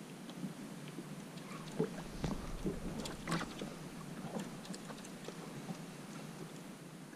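Faint, scattered clicks and knocks aboard a small boat, with a low rumble about two seconds in.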